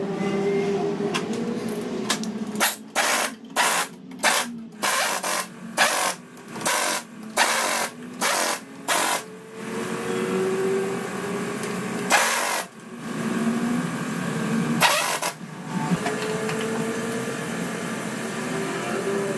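Pneumatic impact wrench fired in about a dozen short trigger bursts, roughly two a second, as it runs down nuts on the engine. Two longer bursts follow later.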